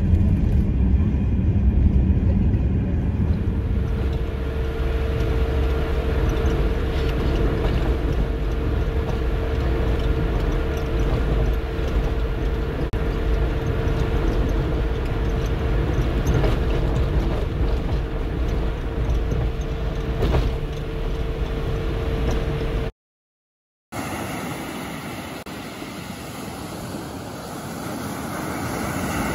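Steady road and engine rumble inside a Mercedes-Benz Sprinter van cruising on a highway, with a steady whine running through most of it. Near the end it breaks off into a second of silence, then waves wash on a sandy beach.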